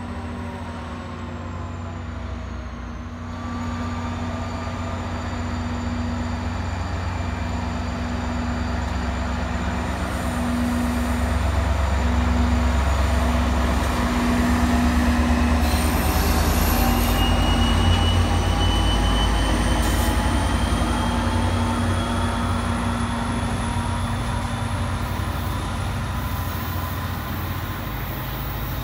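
New Jersey Transit diesel commuter train passing: a steady locomotive engine hum and wheel rumble that builds to its loudest as the locomotive goes by, about halfway through, then eases as the train pulls away. Faint whines rise slowly in pitch through the second half.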